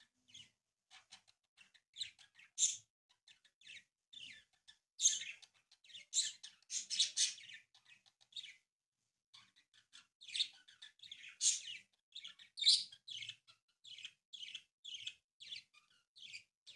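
Sheet of origami paper rustling and crinkling in short, irregular bursts as it is folded and creased by hand.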